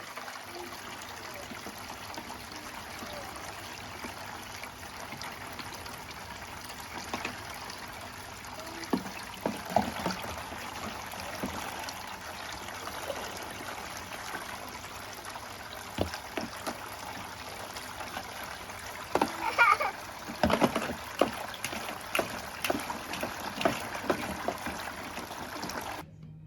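A steady hiss like trickling water, with scattered clicks and knocks of objects being handled, busiest near the end.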